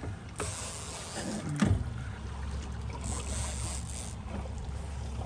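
Suzuki outboard motor running low and steady, with water washing and hissing along the boat; a sharp thump about a second and a half in is the loudest sound.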